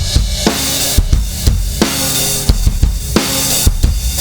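Recorded drum kit groove, with kick, snare and cymbals, played through the KIIVE XTMax compressor plugin, its input driven into heavy compression at a fixed ratio of about 20:1, close to limiting. The hits land about twice a second over a dense cymbal wash.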